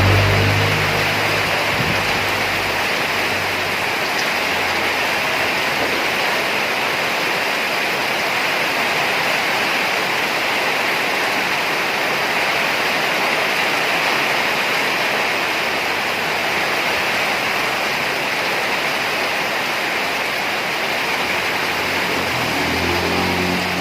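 Heavy rain pouring down in a dense, steady hiss. A vehicle engine fades out in the first couple of seconds, and another comes in near the end.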